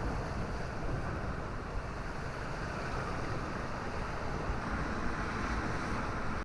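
Strong wind blowing across the microphone: a steady, low rushing noise with no break, which cuts off abruptly at the end.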